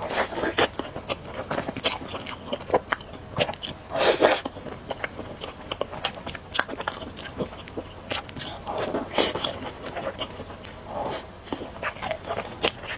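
Close-miked eating of spicy noodle soup: wet chewing and biting with many small mouth clicks, and two longer noisy slurps of noodles, about four and nine seconds in.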